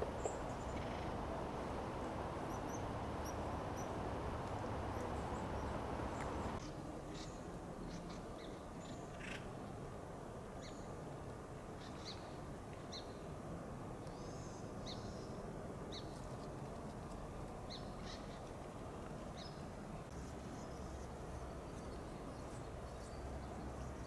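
Acorn woodpeckers calling: short, harsh calls scattered through, mostly in the second part, over a steady low background noise that drops to a quieter level about six and a half seconds in.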